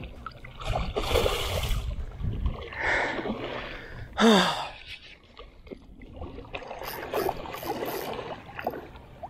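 A hooked snook thrashing and splashing at the surface on the line, a rush of splashing water in the first couple of seconds. A man's loud gasp, falling in pitch, about four seconds in, then quieter water noise.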